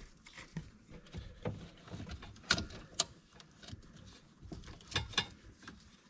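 Plastic wiring-harness connectors and clips clicking and rattling as they are unclipped by hand, with rustling of the wires. A handful of sharp clicks stand out, two of them close together about five seconds in.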